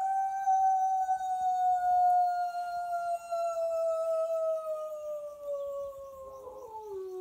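A person imitating a wolf howl to draw an answer from wild wolves: one long howl that rises quickly at the start, then holds and slowly slides down in pitch, dropping a step near the end. It is a higher howl, which the howler likens to a wolf pup or young female.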